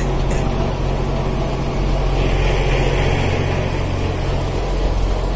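A fishing boat's engine running steadily underway, a low even hum under the rush of wind and water. A hiss of spray or wash swells about two seconds in and fades a second or so later.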